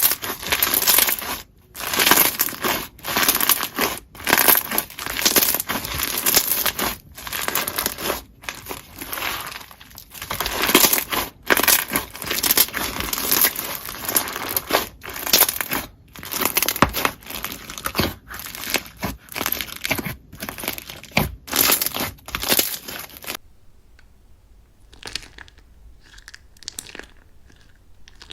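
Slime being pressed and squeezed by hand, making a dense crackling noise in repeated presses of about a second each. Near the end it drops sharply to much quieter, sparse handling sounds.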